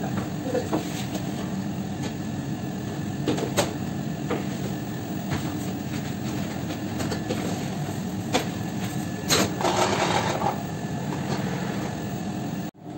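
Steady hum and rumble of bakery machinery around a commercial deck oven, with scattered sharp clanks of a metal rack frame being handled and a brief louder scrape about nine seconds in.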